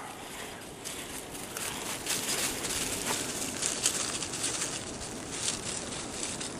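Dry fallen leaves crackling and rustling under a mountain bike's tyres as it rolls closer over a leaf-covered track, growing a little louder about two seconds in.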